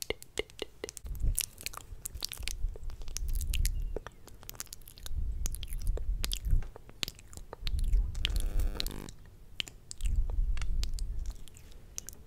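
Close-miked ASMR mouth sounds: a dense run of wet lip and tongue clicks and smacks, with several low rumbles on the microphone lasting about a second each and a short buzzy sound about two-thirds through.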